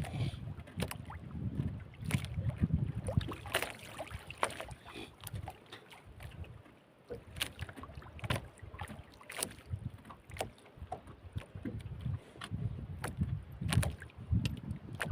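Wind buffeting the microphone in gusts, dropping off briefly midway, with scattered sharp taps and knocks.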